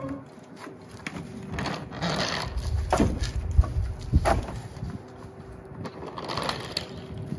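A wooden caster dolly rumbling and knocking over an asphalt driveway as a snowmobile is shifted on and off it. The rumbling is strongest a couple of seconds in, with a few sharp knocks, and a shorter scrape comes near the end.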